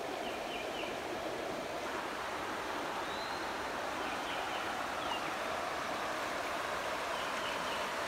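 Steady rush of a shallow river flowing over a rocky bed, with a few faint, short, high chirps heard now and then.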